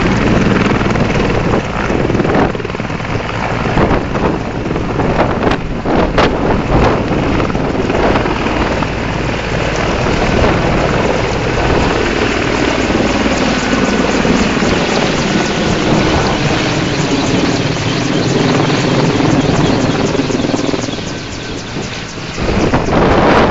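Mil Mi-24 helicopter's twin turboshaft engines and five-blade main rotor running loud and steady at takeoff power as it lifts off, passes low and climbs away overhead.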